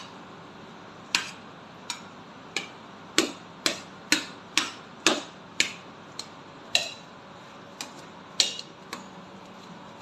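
Metal spoon knocking against a stainless steel bowl while mashing boiled potatoes: a string of sharp clinks, about two a second, some ringing briefly.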